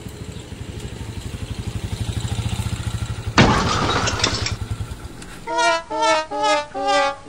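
Zongshen cargo motor-tricycle's engine running as it pulls up, its even pulsing growing louder. About three seconds in there is a sudden loud rushing burst lasting about a second, then the engine falls away. Near the end, music starts with four short bowed-string notes.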